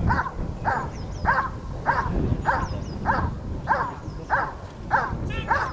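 A German shepherd barking steadily and forcefully, about one and a half barks a second, as a dog does when holding and guarding the helper in the protection phase of a working-dog trial.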